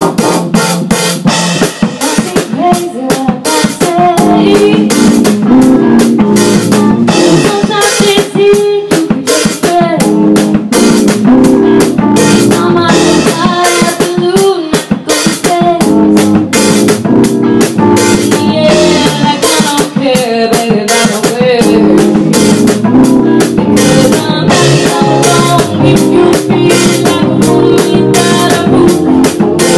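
Recorded band song playing at full level, a drum kit keeping a steady beat under pitched instruments.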